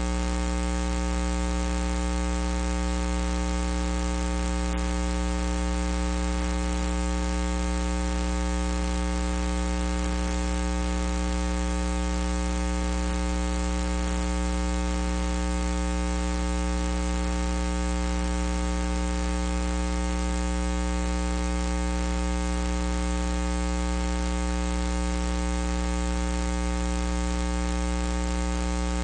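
Steady electrical mains hum with buzzing overtones and a layer of hiss, unchanging throughout, with no arena sound coming through.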